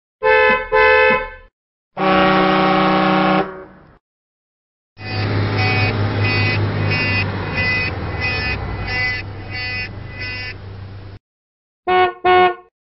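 Vehicle horn sound effects played one after another with silent gaps. First a quick double honk, then a single honk lasting about a second and a half. Next comes a run of about a dozen short honks, roughly two a second, over a low rumble for about six seconds, and near the end two short beeps.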